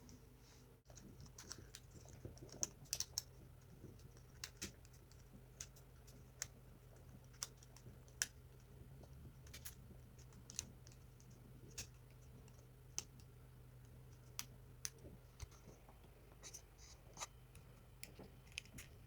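Faint, scattered clicks and light scratches, roughly one a second, of electrical cables being threaded and wound into a plastic spiral binding coil.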